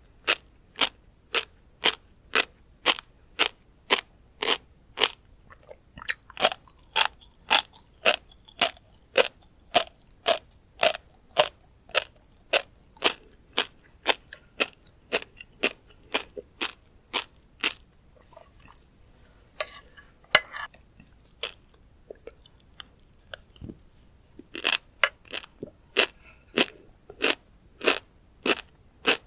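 Close-miked chewing of tobiko (flying fish roe), the tiny eggs crunching and popping in a steady rhythm of about two chews a second. The chewing pauses briefly about two-thirds through, with a short rustling sound, then starts again.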